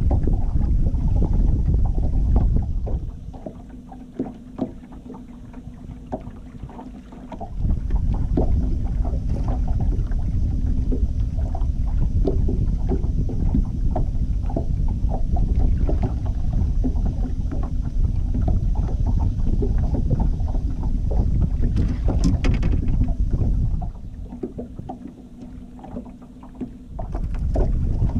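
Wind buffeting the microphone on a fishing boat trolling across open water, dropping away about three seconds in and again near the end, over a faint steady low hum.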